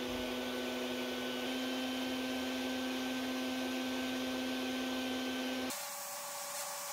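Sandblast cabinet equipment running with a steady droning hum and hiss. Near the end the sound changes abruptly to a brighter, hissier rush as the blast gun sprays abrasive at a steel hammer head.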